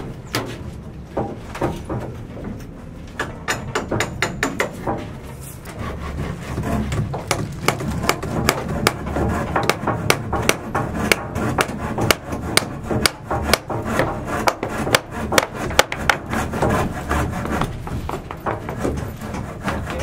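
Hand work on timber: an irregular run of sharp knocks and rubbing strokes on wood, sparse at first and much denser in the second half, over a low rumble that comes in about six seconds in.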